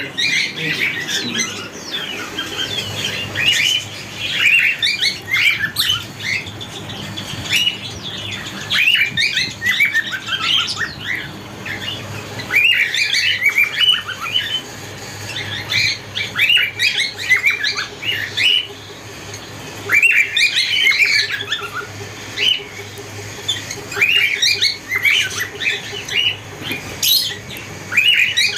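A flock of caged cockatiels chirping and squawking, in bursts of quick short calls that come every few seconds.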